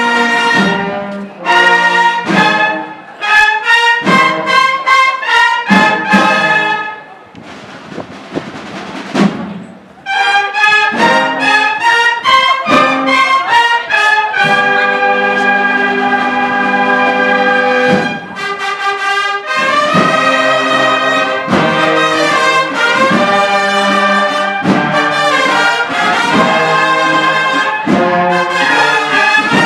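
Brass band playing a slow processional march, with trumpets and trombones holding chords. The music drops to a brief quiet lull about seven seconds in, then comes back in full.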